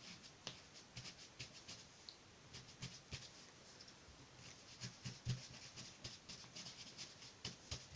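Faint, irregular light taps and scratches of a paint-dipped cardboard toilet-roll tube dabbed again and again onto paper, several times a second.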